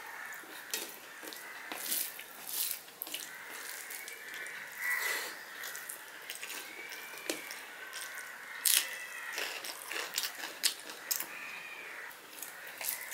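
Close-up mouth sounds of a man chewing a mouthful of rice and vegetables eaten by hand: many sharp wet clicks and lip smacks, with fingers mixing rice on a steel plate. A faint whistling tone rises and falls every second or two underneath.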